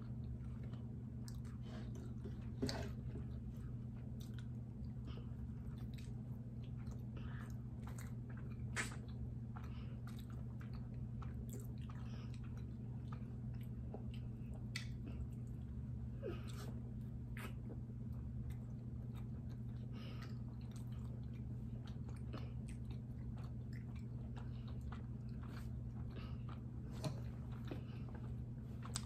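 Close-up mouth sounds of soft sweet bread being chewed: faint wet smacks and small clicks, scattered irregularly, over a steady low hum.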